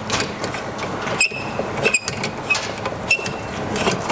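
Included hex tool turning the adjusting bolt in a Thule Edge roof-rack foot: a continuous metallic rattle and scrape with irregular sharp clicks, some ringing briefly, as the clamp block is drawn along the bolt.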